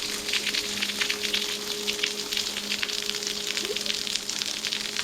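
Water from a small, low-flow waterfall falling as a dense patter of drops and splashes, an irregular rain-like spatter.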